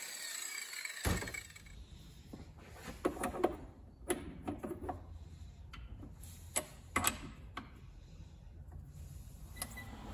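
Scattered metallic clicks and knocks from a chuck key working the jaws of a metal lathe's four-jaw chuck while a workpiece is set up, over a low steady hum.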